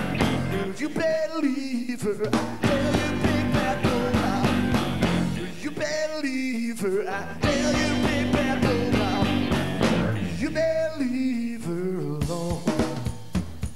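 Male lead singer belting a rock and roll song in phrases, backed by a live rock band with electric guitar, bass and drum kit.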